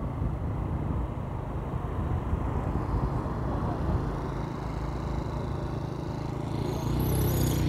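Road traffic: a steady low rumble of passing vehicles. About a second before the end, one vehicle's engine grows louder, its pitch beginning to rise as it speeds up.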